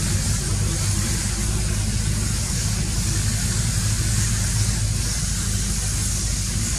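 A steady low engine-like hum with an even high hiss over it.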